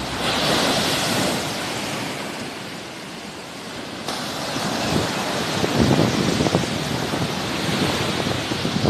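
Sea waves breaking and washing ashore, one surge near the start easing off and another building about four seconds in, with wind rumbling on the microphone.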